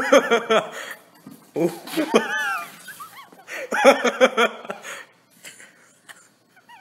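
People laughing in several rounds: a rapid ha-ha at the start, a high-pitched squealing giggle about two seconds in, and more laughter about four seconds in, dying away about five seconds in.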